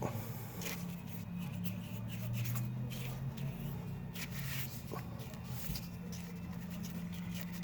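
Paintbrush strokes swishing over a fiberglass surface as Awlgrip paint is brushed on, short and irregular, over a steady low hum.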